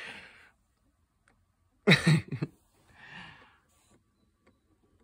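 A woman's short breathy laughs: a soft breath-laugh at the start, a louder voiced chuckle about two seconds in, and a softer breathy one a second later.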